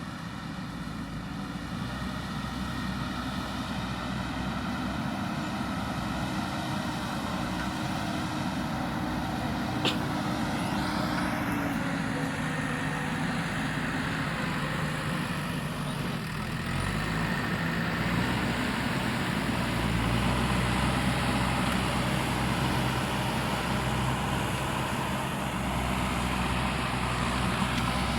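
JCB backhoe loader's diesel engine running steadily as the machine works, its pitch dropping about twelve seconds in and getting a little louder after about seventeen seconds. A single sharp click about ten seconds in.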